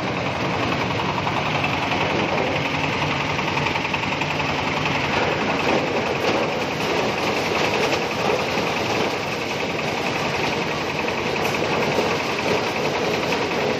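Engine-driven corn sheller, a type that shells cobs without husking them, running steadily with a dense, even mechanical noise during a test run.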